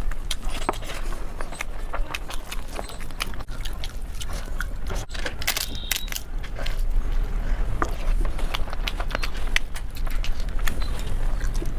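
Close-miked mukbang eating sounds: wet chewing with frequent small clicks and crunches from the mouth. A steady low hum runs underneath.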